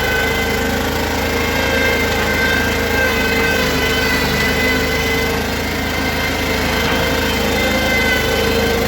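Mustang 320 skid steer loader's engine running steadily, with an even drone that holds without change.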